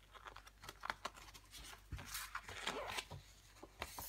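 Paper rustling from a CD album's printed booklet and paper inserts being handled, in irregular crinkles with small taps and clicks.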